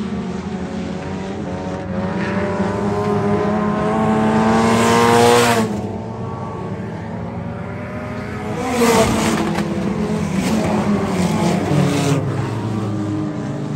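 Race car engines on a dirt oval. One car accelerates with rising pitch for a few seconds and lets off suddenly about five and a half seconds in. Another passes loudly just before the nine-second mark with a falling pitch, and several engines keep running under it.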